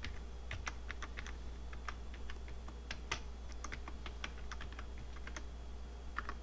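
Computer keyboard keys clicking in an irregular run of keystrokes as a command is typed, with a close pair of clicks near the end.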